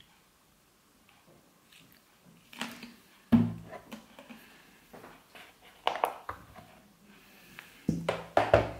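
Purple plastic mixing bowl being handled on a kitchen scale and set down on the table. A few sharp knocks and clatters, the loudest about three seconds in and a quick run of them near the end.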